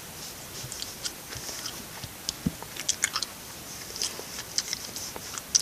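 Sticky Blu Tack slime being peeled and pulled off hands, making irregular small sticky crackles and clicks.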